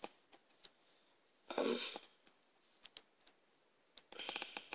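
Quiet small room with a boy's short wordless vocal sound about a second and a half in, a few scattered faint clicks, then a quick run of clicks near the end.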